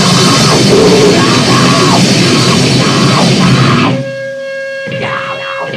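Lo-fi noise-grind band recording: a loud, dense wall of distorted guitar and drums that cuts off about four seconds in, leaving a single held feedback-like tone and quieter guitar.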